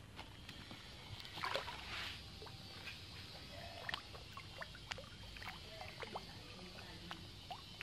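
Farmed fish splashing and plopping at the surface of the tank as they take thrown feed pellets. There are two louder splashes about one and a half and two seconds in, then faint scattered plops and ticks.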